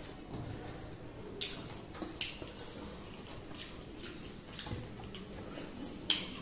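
Wet eating sounds of a meal eaten by hand: chewing and lip smacks with fingers mixing rice in curry gravy, heard as a string of short wet clicks, the sharpest near the end.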